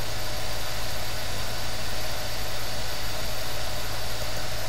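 Steady low hum under an even hiss, unchanging throughout, with no separate events.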